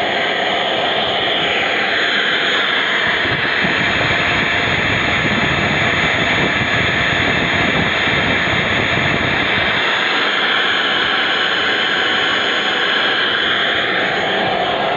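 Rebuilt BorgWarner turbocharger running on test, with a loud rush of air and a steady high whine. The rush climbs about a second and a half in, holds, and eases off near the end.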